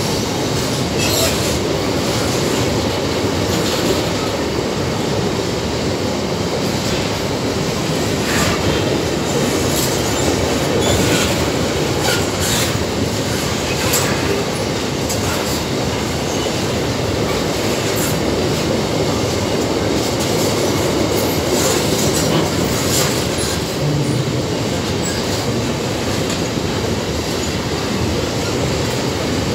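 Empty GDT ore gondola wagons rolling past at steady speed: a continuous heavy rumble of steel wheels on the rails, broken by sharp clicks and short high squeaks at irregular moments.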